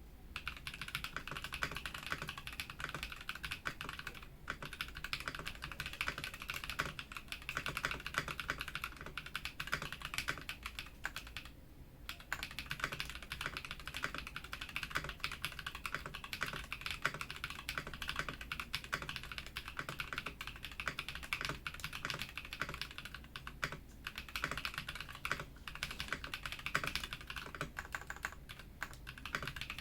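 Normal typing on an Ikki68 Aurora mechanical keyboard with stock Auralite switches, an aluminium plate and ePBT Dolch PBT keycaps: a fast, continuous run of keystroke clacks, broken by short pauses about 4, 12 and 24 seconds in.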